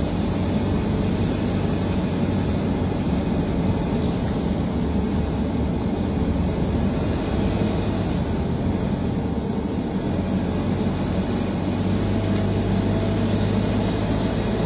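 Steady engine and road noise of a moving car, with a constant low hum.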